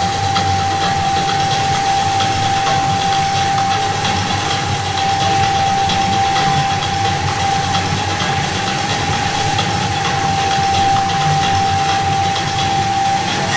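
Water-dance fountain running: a steady rushing hiss of water jets over a low rumble, with a single high tone held unchanged throughout.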